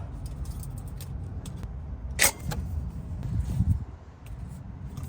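A sharp metal clink about two seconds in and a few lighter ticks from hardware being handled during an exhaust install, over a steady low rumble.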